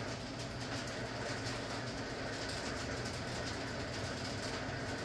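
Steady rushing background noise with a faint low hum underneath, without distinct knocks or clicks.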